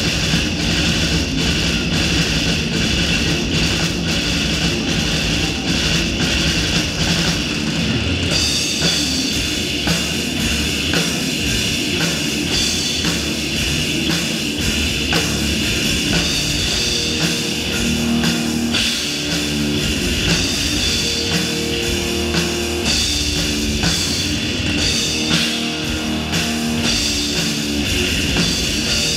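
Heavy metal band playing live at full volume: electric guitars, bass and a fast-hit drum kit, captured by the camera's own microphone in the room rather than from the mixing desk.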